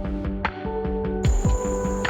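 Music with a steady thudding beat under held notes; brighter high sounds join a little after halfway.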